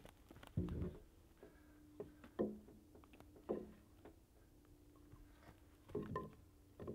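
A heavy milled wooden beam being shifted by hand and set down on wooden stumps: four dull wood-on-wood knocks with some scraping, about half a second in, twice in the middle and a double knock near the end.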